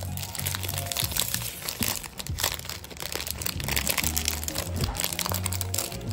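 Clear plastic wrap crinkling and crackling as it is peeled by hand off a new 9x9 puzzle cube, over background music with a steady low bass line.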